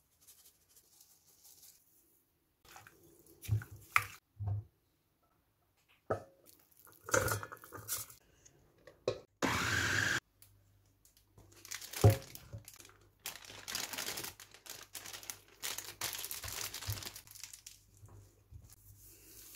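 Kitchen food-prep handling sounds: a few separate knocks and clatters, then a short burst of about a second from a small electric chopper grinding raw chicken. A loud knock follows, then a long stretch of crinkling and rustling.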